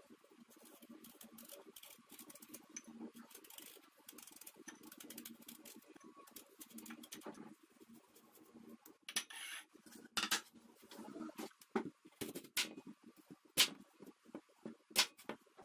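Faint scraping of a small knife peeling the skin off a raw quince, then sharper clicks and knocks as a knife cuts through the firm quince onto a wooden cutting board over the last several seconds.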